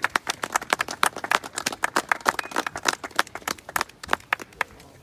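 A small group of people applauding, a dense patter of hand claps that thins out and stops shortly before the end.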